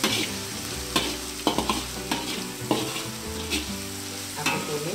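Minced shallots and garlic sizzling in hot oil in a wok, stirred with a spatula that scrapes and knocks against the pan in irregular clicks. The aromatics are being sautéed over high heat until fragrant and starting to brown.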